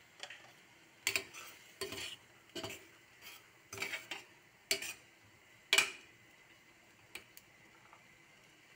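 A spoon stirring and scraping sautéed mung beans in a stainless steel pan. It makes a series of separate scrapes and clinks against the metal, the loudest about six seconds in.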